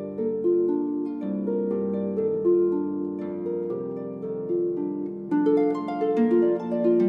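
Solo harp playing a slow modal piece, plucked notes ringing on over low sustained bass notes. About five seconds in the playing becomes louder and busier, with higher notes.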